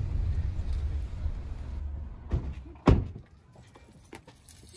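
Low road rumble inside a moving car, then two car doors shutting with thuds about half a second apart, the second the louder.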